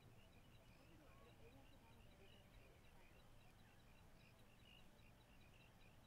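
Near-silent dusk ambience: a faint, high-pitched insect chirp repeating evenly about four times a second, with scattered softer chirps and a faint low hum beneath.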